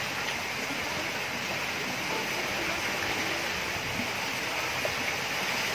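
Steady rushing hiss of water, even and unbroken.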